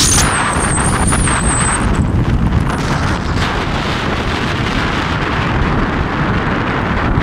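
Wind buffeting the microphone and road noise from a moving vehicle: a loud, steady noise, heaviest in the low end. A thin, wavering high whistle sounds over it for the first two seconds.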